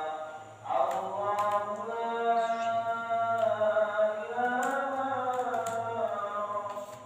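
A voice singing a chant-like melody in long, held notes that bend slowly in pitch, with a few sharp computer-keyboard key clicks over it.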